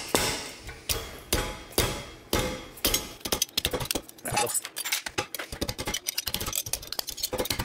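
Hammer tapping a copper rose petal to bend it around a screw on a metal jig: metal-on-metal strikes with a short ring, about one every half second. From about three seconds in come quicker, lighter taps.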